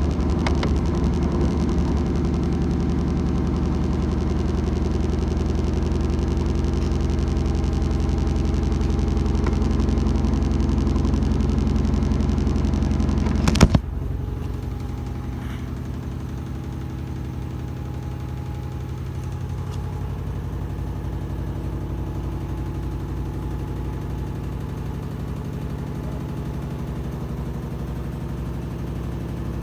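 Washing machine running with a steady motor hum; a sharp clunk about fourteen seconds in, after which it runs on quieter.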